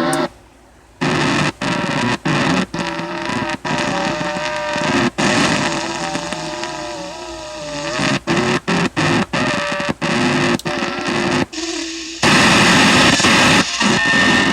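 Unidentified odd signal coming through an amateur radio receiver: wavering, warbling tones with several overtones over hiss, cut by many brief dropouts. Near the end it gives way to a loud burst of static-like noise.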